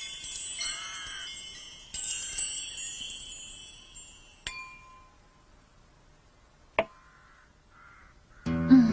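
Wind chimes tinkling in many overlapping high ringing tones, dying away over about four seconds. Two sharp clicks follow in a nearly quiet stretch, and a guitar starts playing just before the end.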